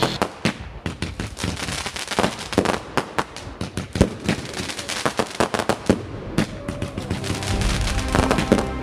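Aerial fireworks going off: a rapid, irregular series of sharp bangs and crackles from bursting shells. Background music fades back in near the end.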